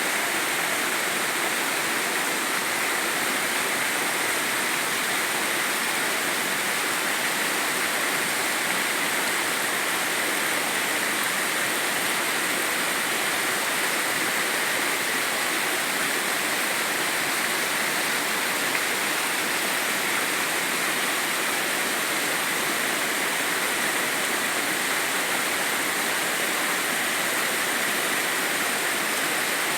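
Mountain valley stream: water rushing and splashing over rocks in a steady, even flow.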